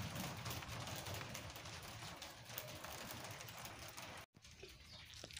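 Faint outdoor storm ambience: a steady hiss of light rain and wind with scattered drip-like ticks, and a low rumble dying away in the first second. It cuts off suddenly about four seconds in.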